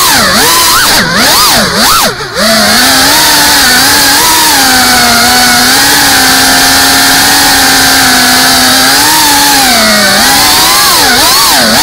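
FPV racing drone's motors and propellers buzzing loudly. The pitch swings down and back up several times with quick throttle cuts in the first two seconds, holds steady through the middle, and wavers again near the end.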